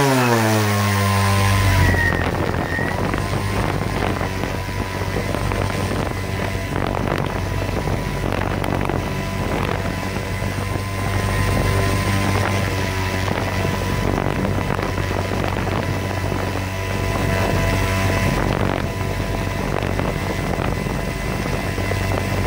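HobbyKing Elite 5010 274kv brushless motor on an 8S pack, spinning an 18x4 carbon-fibre propeller on a thrust stand. Its pitch falls over the first two seconds as the throttle is eased back. It then runs at a steady hum and whoosh, holding about 900 grams of thrust, the hover-level load being tested.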